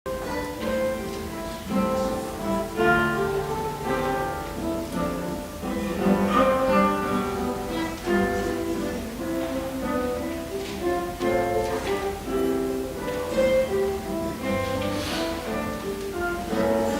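Instrumental music: a guitar playing a melody of plucked notes.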